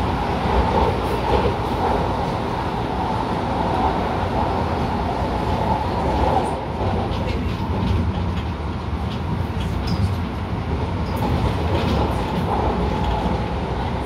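MTR Tung Chung line A-train running, heard from inside the carriage: a steady rumble of wheels on rail and running gear, with a few faint clicks in the second half.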